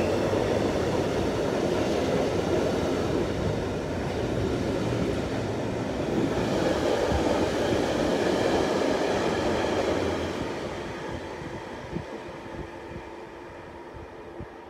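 Container wagons of an intermodal freight train rolling past at speed, a steady loud rush and rumble of wheels on rail. About ten seconds in, the tail of the train passes and the sound fades as it recedes, with a few faint clicks of wheels as it goes.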